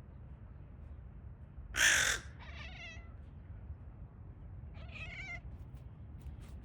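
A cat calling. First comes one loud, harsh cry about two seconds in, then a shorter wavering meow, then another meow about five seconds in.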